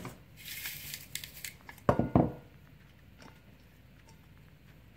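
A carrot twisted through a handheld plastic cone spiralizer, its blade shaving the carrot into thin strands with a crisp, scratchy rasp for about a second. About two seconds in come a couple of louder knocks as the spiralizer and carrot are handled.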